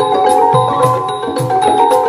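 Thai mahori ensemble playing a classical piece: a struck mallet-instrument melody over a steady beat of low drum strokes and small cymbal strikes, about two a second.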